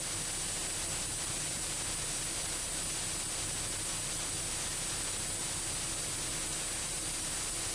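Steady hiss of the cockpit intercom audio feed, with the low drone of the Cessna Grand Caravan's turboprop engine faintly underneath.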